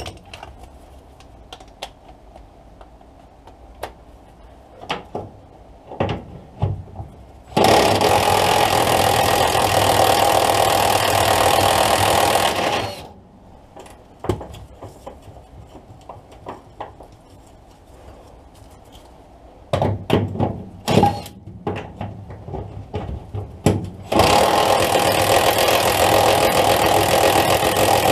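A power tool running in two bursts, one of about five seconds and another starting near the end, with scattered clicks and knocks of tools and metal parts in between. It is undoing a bolt during removal of a Rover P6 rear axle.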